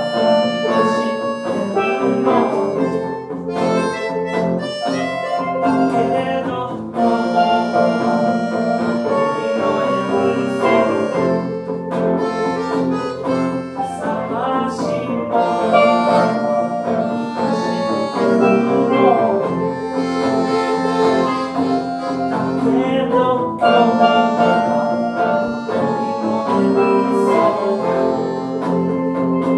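Live band music: held melody notes over changing chords, playing at a steady level.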